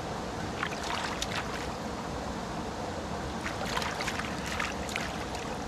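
Steady rushing noise of flowing river water, with two clusters of short ticks and splashes over it.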